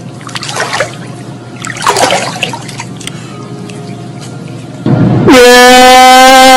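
Quiet water splashing, then about five seconds in a man's loud crying wail held on one steady pitch, clipped and distorted by heavy bass boosting.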